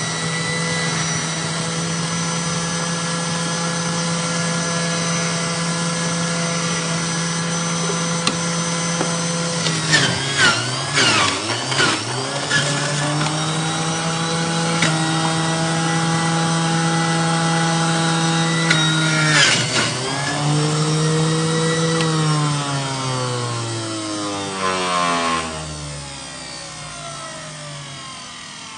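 Electric blender motor running at a steady pitch. It is interrupted with a clatter about ten seconds in, speeds back up, stops and restarts again a few seconds later, then is switched off and winds down, its pitch falling over a few seconds near the end.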